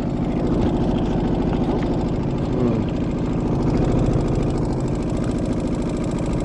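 Small boat motor running steadily at slow trolling speed, with a fast even pulsing.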